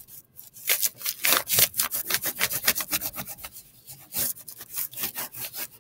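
Crayon rubbed hard back and forth across paper laid over crumpled tin foil: quick, scratchy strokes, several a second, as the foil's bumps print through as a rubbing.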